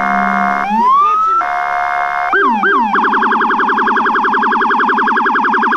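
Police patrol SUV's electronic siren stepping through its tones: a held tone, a rising sweep, a couple of short yelps, then a very fast warble from about three seconds in.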